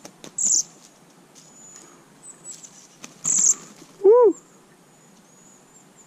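A small bird tangled in fishing line squeaks in distress as it is handled. Two loud, shrill squeaks come about half a second in and just after three seconds, with faint thin chirps between. A man's short "Woo!" comes about four seconds in.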